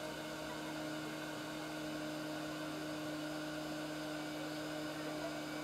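Hot air rework station blowing steadily, a fan hiss with a low, even hum under it, heating the board at low temperature to free a component.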